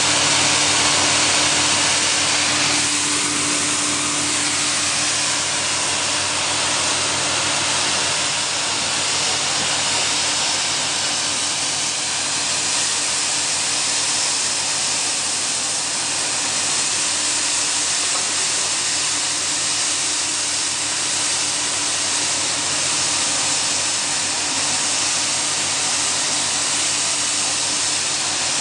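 DR40 pile drilling rig running steadily at a construction site: a continuous loud hiss over a low engine hum, the hum a little stronger in the first few seconds.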